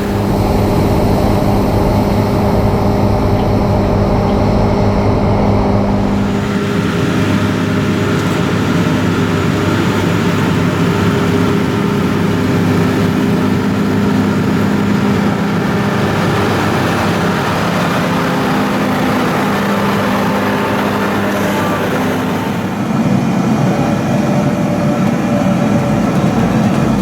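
Large diesel farm machinery running steadily at work in a rice field, with a constant engine hum; the sound shifts about six seconds in and again near the end.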